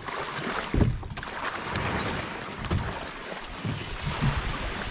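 A canoe being dragged by hand through dense swamp reeds and grass: stems rustling and scraping along the hull and water sloshing, with a few dull thumps, the loudest about a second in.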